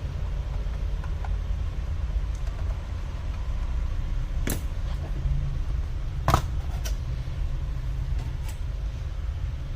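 A steady low hum with a few sharp clicks and taps, the loudest about two thirds of the way through.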